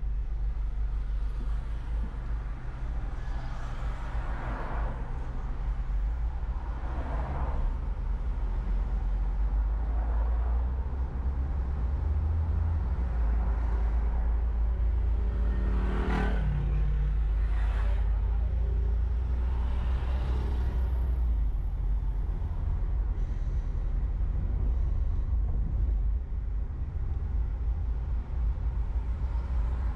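Car driving through city traffic: a steady low road and engine rumble, with other vehicles swishing past every few seconds. About halfway through, a louder vehicle passes close by, its engine note falling as it goes.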